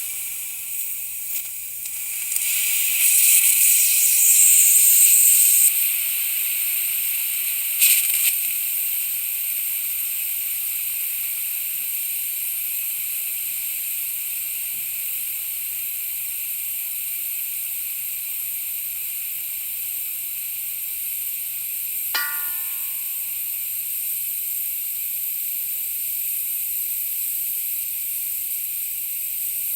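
Compressed air leaking from an air tank: a steady high hiss that swells louder about three to six seconds in, with a short sputter near eight seconds. A brief squeaky tone cuts in once, about 22 seconds in.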